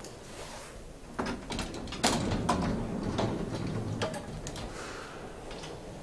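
Elevator doors sliding and latching: a run of clicks and knocks with a rumbling hum underneath, the loudest knock about two seconds in.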